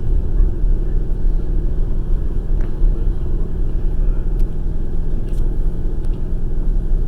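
Passenger train running along the track, heard from inside the carriage: a steady low rumble of wheels on rails, with a few faint clicks.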